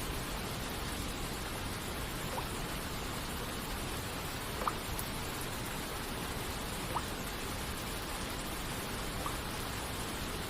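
Steady hiss of rain and falling water, with a single water droplet plinking about every two seconds, four times in all.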